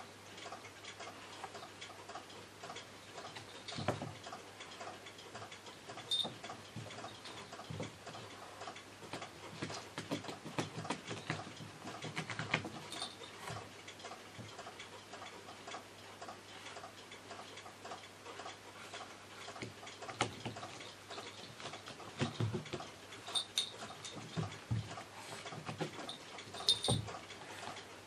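A small jingle bell on a cat's collar tinkles briefly now and then as the cat pounces on and bats at a feather wand toy. Light irregular clicks and soft thumps of paws and toy on carpet run under it, the thumps more frequent in the second half.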